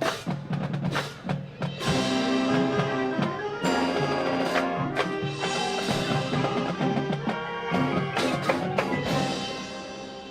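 High school marching band playing, with sharp percussion hits over held band chords. The music dies away near the end.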